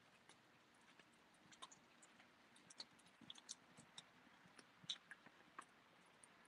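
Near silence with faint, scattered light clicks and ticks, the sharpest about five seconds in: small leashed dogs walking on asphalt, their claws and leash hardware clicking.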